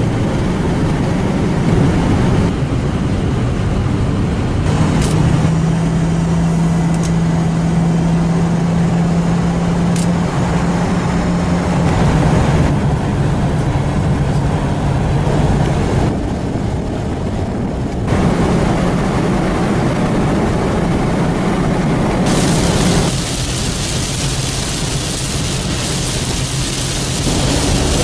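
Pickup truck driving at highway speed, heard from inside the cab: steady engine drone and road noise. A low hum holds through the middle, and the noise changes abruptly several times, with a brighter hiss in the last few seconds.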